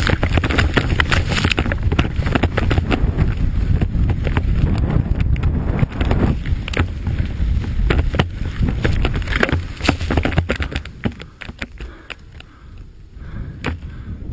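Wind rushing over a snowmobile-mounted camera's microphone, with many irregular knocks and rattles as the sled bounces down a steep snow slope. It quietens about eleven seconds in.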